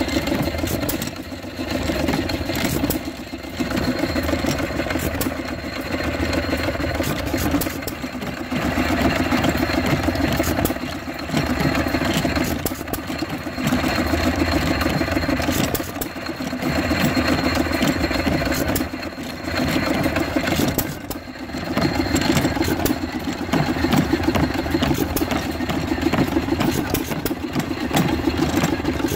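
Vintage hit-and-miss stationary gas engines running, a rapid beat of firing that eases in brief lulls a few times, about every three to five seconds.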